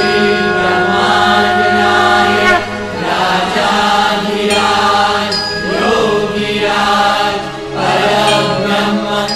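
Devotional chanting sung as music, with voices rising and falling over steady held notes.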